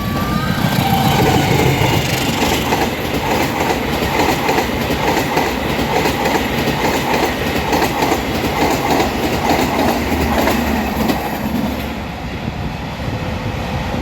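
A train passing close by, its wheels clacking rhythmically over the rail joints with a heavy rumble that eases off near the end.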